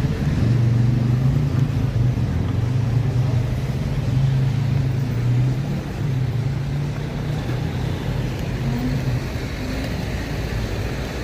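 A motor vehicle's engine running close by with a steady low hum that fades out about nine seconds in, over street background noise.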